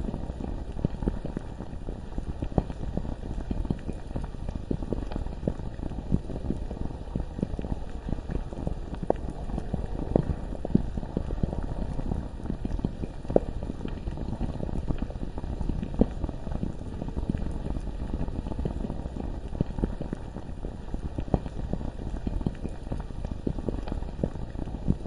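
Bubbling lava: a thick, deep bubbling over a low rumble, with a steady stream of small pops.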